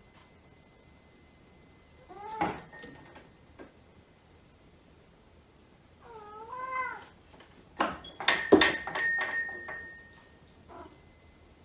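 A cat meowing twice, a short meow and then a longer wavering one. Then the cat jumps down off the metal wall ladder, making a few sharp knocks and a clatter with a metallic ringing that hangs on briefly; this is the loudest part.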